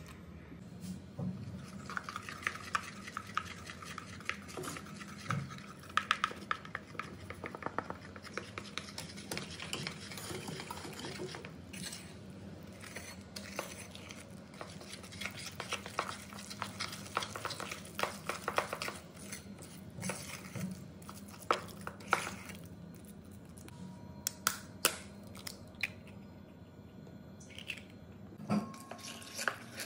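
A metal spoon stirring thick chocolate brownie batter in a ceramic bowl, with irregular scraping and clinking against the bowl.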